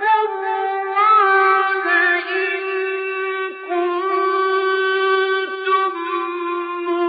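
A male reciter chanting the Quran in the ornamented tajwid style, holding long, high notes on one breath with melodic turns and a step in pitch partway through.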